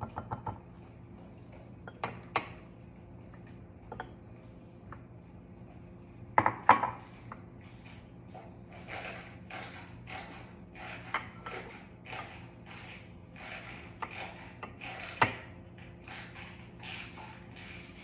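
Silicone spatula stirring, scooping and pressing oat crumble in small ceramic bowls: a few sharp clacks of spatula and bowls, the loudest about a third of the way in, then a run of short scrapes about twice a second. A faint steady hum lies underneath.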